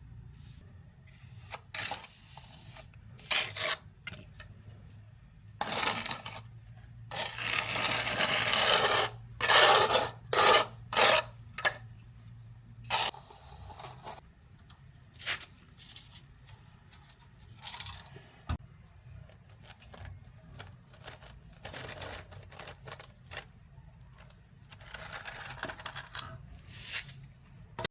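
Irregular handling noises: scrapes, rustles and knocks, with one longer scraping rustle about 8 seconds in. A faint steady low hum stops about halfway through.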